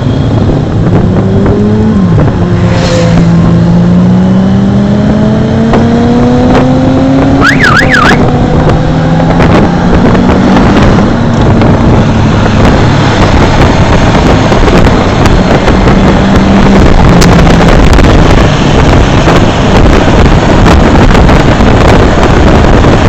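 Motorcycle engines running at road speed under heavy wind noise on the microphone; an engine climbs steadily in pitch over the first several seconds as it accelerates, then its note sinks into the wind rush.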